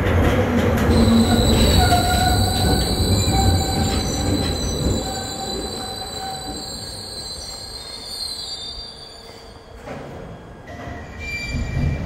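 A Glasgow Subway train pulls into the platform and brakes to a stop. The heavy rumble of the wheels is loud at first and fades as it slows, with high-pitched squealing held over it for most of the first eight seconds. A short knock comes about ten seconds in, and a louder clunk near the end as it stops.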